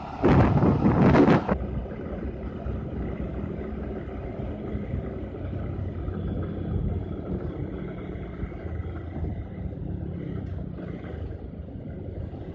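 Bajaj Pulsar 200's single-cylinder engine running at road speed, with tyre and traffic noise. Wind buffets the microphone at first and cuts off abruptly about a second and a half in, leaving a steadier, quieter engine hum.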